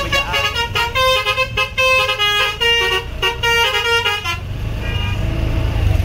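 Tour bus's basuri telolet horn, a multi-trumpet musical air horn, playing a quick tune of stepped notes that stops about four and a half seconds in. After that the bus's engine is heard running as it comes closer.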